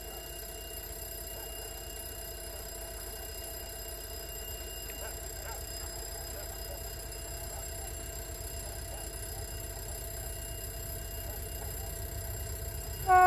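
Diesel engine of an approaching D1 diesel multiple unit's motor car, heard from afar as a low pulsing rumble that grows slowly louder. Right at the end, the train's horn comes in loudly.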